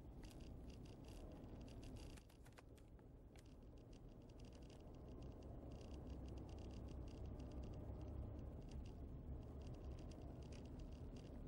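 Faint low road and engine rumble heard from inside a slowly moving car, with light rattling ticks throughout; the rumble grows a little louder partway through.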